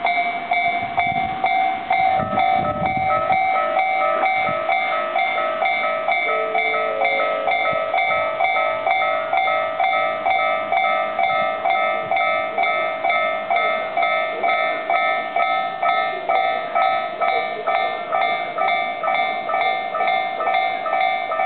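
Japanese railway level-crossing warning bell ringing in a fast, even, repeating ding of several bell tones, during the long warning before the barriers come down. A low rumble sounds briefly about two seconds in.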